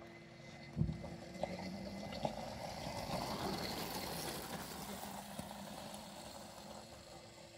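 Small electric quad driving past on gravel: a crunching hiss of the tyres on the stones that builds as it approaches, is loudest about halfway through, then fades as it drives away, with one thump about a second in.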